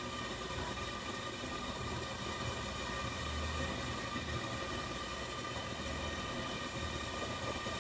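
Steady machine hum with several constant high tones over a low rumble, running without change.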